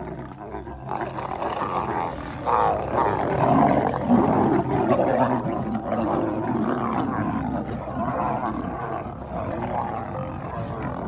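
Lions snarling and roaring in a fight. The noise builds about a second in and is loudest a few seconds later.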